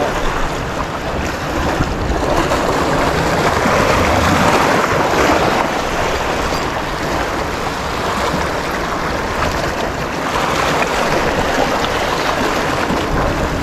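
Sea waves washing and breaking against a rocky shoreline, mixed with wind on the microphone: a steady rushing noise that swells a little about four seconds in and again near the end.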